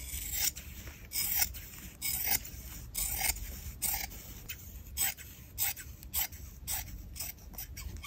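Large black fabric shears cutting through linen fabric, each closing of the blades a crisp rasping snip. The snips come about one or two a second, quickening to several a second near the end.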